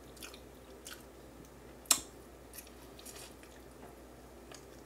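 Close mouth sounds of someone chewing and gnawing grilled barbecue jerk neck bones held in the fingers: soft wet smacks and small clicks, with one sharp loud click a little under two seconds in.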